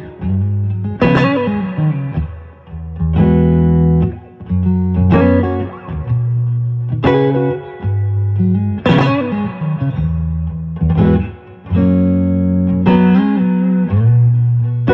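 Electric guitar played through a Sinewave JF-100 amplifier with a Dumbleland output section. A progression of strummed chords, each struck and left to ring for a second or two.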